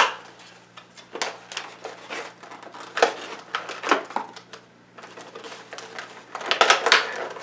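Plastic toy packaging crinkling and clattering in irregular bursts, heaviest near the end, as a child tugs at a Fingerling toy that is stuck fast in its box.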